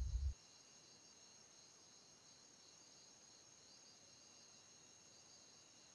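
Faint steady chorus of night crickets, with thin high continuous tones. A low drone cuts off just after the start, leaving only the crickets.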